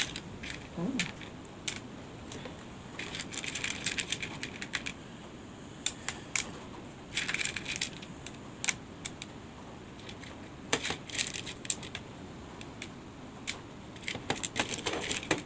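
Small purple craft stones clicking and rattling against a clear plastic bowl as a hand picks through them. The clicks come in short irregular bursts every few seconds.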